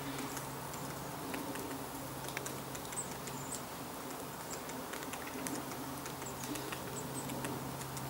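Great spotted woodpecker pecking at bark while foraging: scattered taps at an uneven pace rather than a drumming roll.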